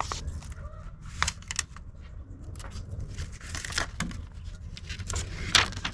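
Handling of a vinyl tailgate decal and its paper backing: irregular crinkling, scratching and small clicks, the sharpest about five and a half seconds in.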